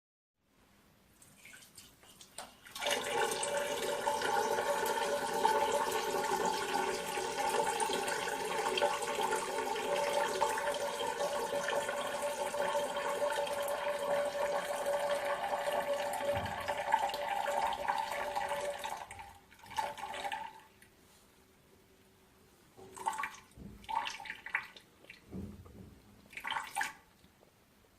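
A person urinating in one long steady stream splashing into water, starting faintly, running strong for about sixteen seconds, then tailing off. It ends in a few short final spurts.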